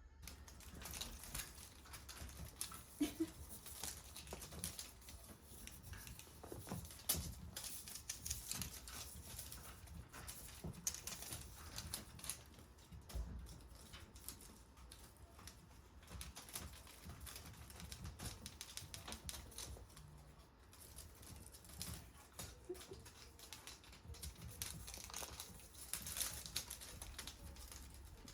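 Kittens moving about: a steady run of small scratches, clicks and rustles.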